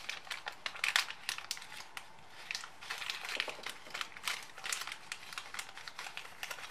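Irregular crinkling with many small sharp clicks throughout: handling noise.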